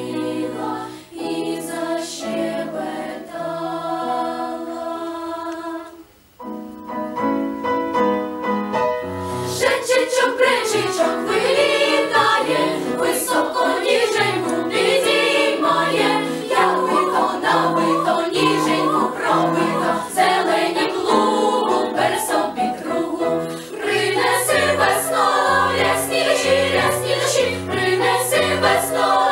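Children's choir singing a Ukrainian folk-song medley with piano accompaniment. The sound thins briefly about six seconds in to a short passage of separate notes, then the full choir comes back in over the stepping piano bass.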